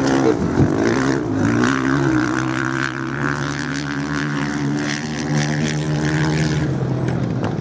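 Off-road racing motorcycles' engines running and revving on a sand course, the pitch rising and falling as the bikes accelerate and ease off; the brighter upper part of the sound fades about seven seconds in.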